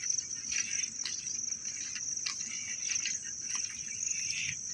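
A steady, high-pitched insect chorus trilling without a break, with a few faint clicks.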